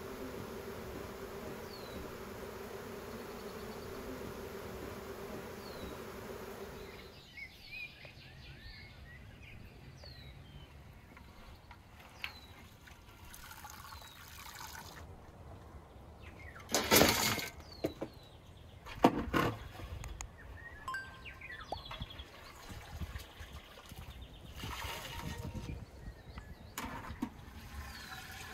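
Honeybees buzzing steadily, massed at a hive entrance, cut off suddenly about a quarter of the way in. Then water sloshing and splashing as a ladle lifts boiled crayfish out of a large pot, with two loud splashes a couple of seconds apart past the middle.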